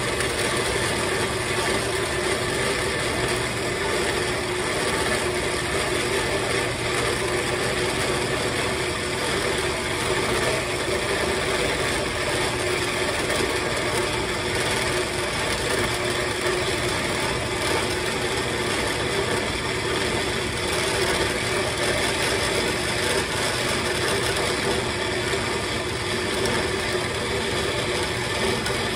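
Horizontal metal-cutting band saw running steadily while its blade feeds slowly down through a metal tube, the electric motor's steady hum under the blade cutting through the metal.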